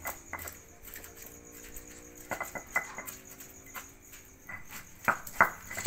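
Stone pestle grinding and pounding a wet chilli spice paste in a stone mortar (Indonesian cobek and ulekan), with scattered sharp knocks of stone on stone, the loudest few near the end.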